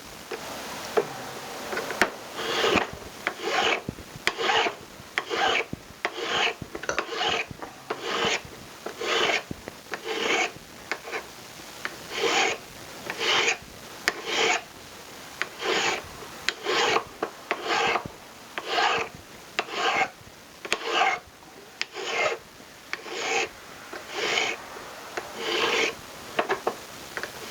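Hand file rasping over a silver ring, shaping its domed profile, in even back-and-forth strokes about once a second.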